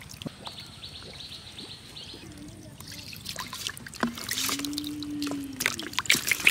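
Live catfish wriggling and slapping in shallow water in a plastic basin: small splashes and dribbling water, getting busier in the second half. A high steady tone sounds briefly near the start, and a low hum-like tone about four seconds in.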